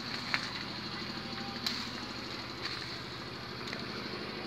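An engine running steadily at idle, a low, evenly pulsing drone, with a few faint clicks about once a second.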